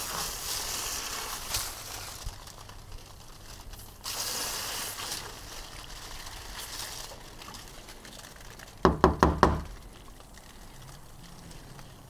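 Garden hose spray nozzle spraying water through a plastic furnace condensate trap to flush out clogged grit and sediment, in two spells of hiss. About nine seconds in, a quick run of about five sharp knocks.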